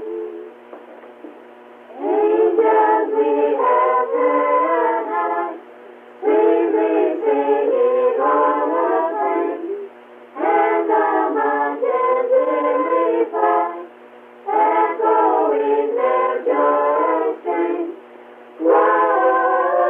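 A group of children singing a Christmas carol, in sung lines with short breath pauses between them, heard through an old, narrow-sounding cassette recording.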